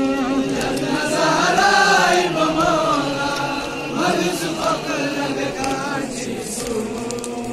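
A crowd of men chanting a Shia Ashura mourning lament (noha) together, many voices following one rising and falling melody.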